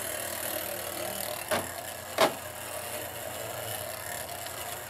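Two battling tops, a Sonokong Top Blade and a Tornado Tops top, spinning with a steady whir in a plastic battle stadium, with two sharp clacks about a second and a half and two seconds in as they hit each other.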